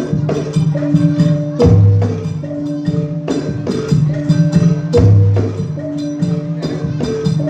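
Classical jathilan gamelan music: a steady rhythm of sharp drum and struck-metal strokes over ringing pitched bronze tones, with a deep low gong note about every three and a half seconds.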